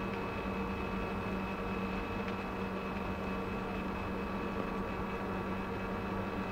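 Steady mechanical hum of office equipment, with several constant tones over a noise hiss and a couple of faint clicks.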